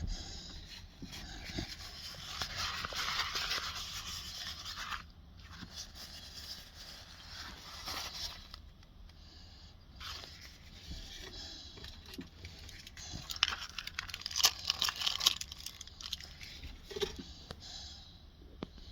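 Boerboel puppy snoring, drawing about four long, noisy breaths a few seconds apart, the last one crackly.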